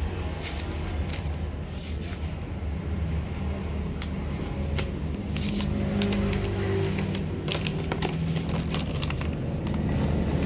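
Crackling and scraping of parcel packaging being handled and opened, many irregular sharp clicks, over a steady low hum.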